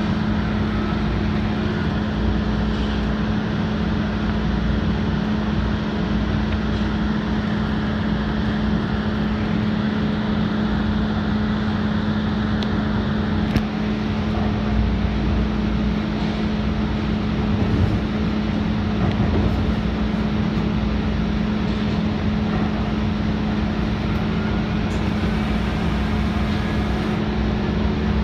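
A DART light rail car running, heard from inside: steady rumble of wheels on rail with a constant low hum, and a single click about halfway through.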